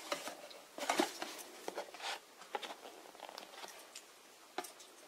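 Cardboard box insert and plastic packaging being handled: scattered soft rustles, scrapes and light taps.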